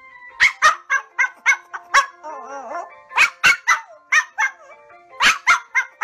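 Small white Pomeranian yapping in quick runs of short, high barks, several a second with short pauses between runs, and a brief wavering whine about two seconds in.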